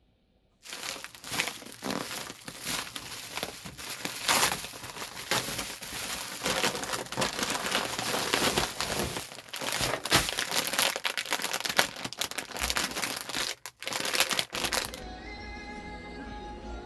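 Close crinkling and crumpling, as of packaging being handled, for about fourteen seconds before it stops abruptly. Soft background music follows near the end.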